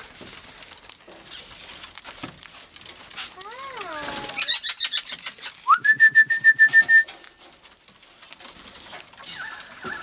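Wild parrots, among them Australian king parrots, calling at close range: a gliding call about three and a half seconds in, a quick run of high chirps just after, then a high, steady whistle held for about a second.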